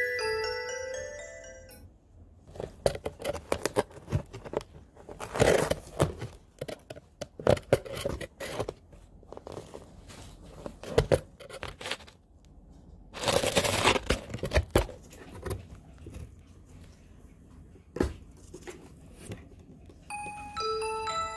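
A cat scratching and scrabbling in a cardboard box: irregular taps and scratchy rustling, with two louder tearing scrapes, one about five seconds in and a longer one a little past the middle. Light glockenspiel music fades out in the first two seconds and comes back just before the end.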